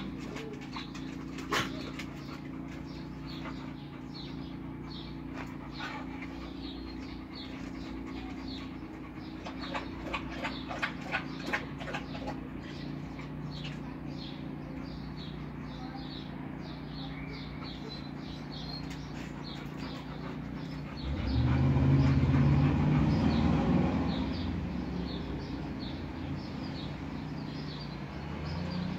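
Dogs panting, short breaths a few times a second, over a steady low hum. A run of sharp clicks about ten seconds in, and a louder low rumble of a passing vehicle for about three seconds, starting a little past the twenty-second mark.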